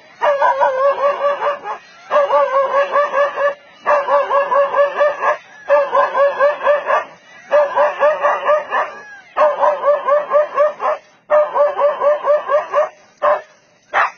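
Dog barking at a leopard in rapid volleys: about eight bursts of quick, continuous barks, each burst about a second and a half long, with short breaks between them.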